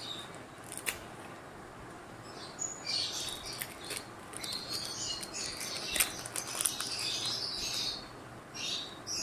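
Small birds chirping in repeated short bursts, with a few light clicks.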